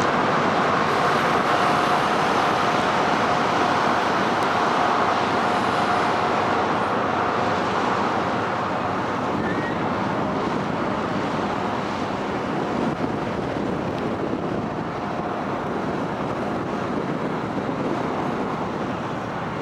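Steady mechanical rumble of a large car ferry's engines while it manoeuvres out of port, with a faint steady whine in the first half, slowly getting quieter.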